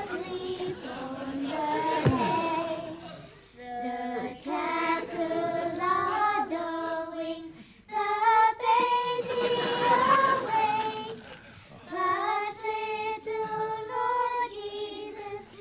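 A small choir of carol singers, children's voices among them, singing a Christmas carol in sustained phrases with short breaks between them.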